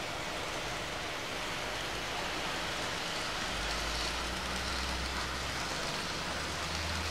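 Old TOMIX N-gauge 103-series model train running along the layout's track: a steady hissing rumble of small wheels on rail. A low hum joins in about three and a half seconds in.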